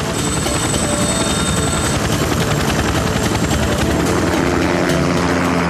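Helicopter in flight: steady, rapid chop of the main rotor blades over the engine noise, with a thin high whine during the first two seconds.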